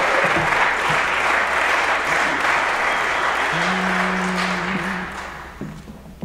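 Audience applause, dying away near the end. Partway through, a single steady note sounds for about a second: a pitch pipe giving the barbershop quartet its starting pitch.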